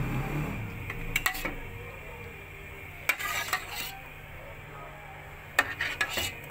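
A metal spoon clinking and scraping against a steel pot as custard is spooned in and mixed, in short clusters of clinks about a second in, around three seconds in, and near the end.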